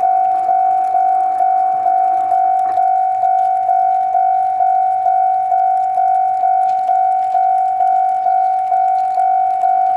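Electronic warning bell ringing steadily in one pitch, about two strokes a second, each stroke fading before the next.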